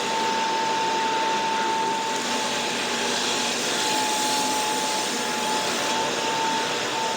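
An electric motor-driven machine running steadily in the workshop: an even hiss with one steady high whine, typical of a sander or shop vacuum.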